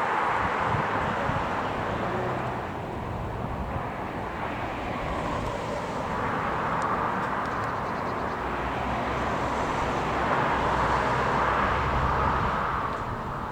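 Airliner engine noise at an airport, a steady rushing rumble that swells near the start and again late on.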